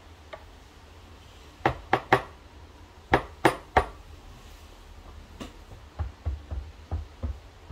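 Espresso tools being handled: sharp metal clinks, two quick sets of three, then a run of softer knocks about six seconds in.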